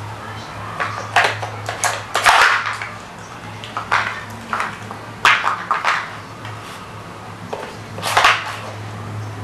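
Plastic cones and wooden pieces of a dog puzzle board knocking and clattering as a dog noses at them, in irregular clusters of knocks. A steady low hum runs underneath.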